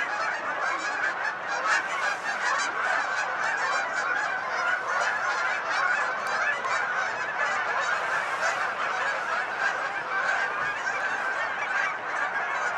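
A large flock of Canada geese honking, many calls overlapping in a continuous chorus as the birds fly overhead.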